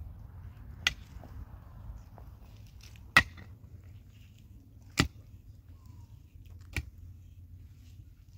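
Four sharp knocks, evenly spaced about two seconds apart, over a low steady rumble.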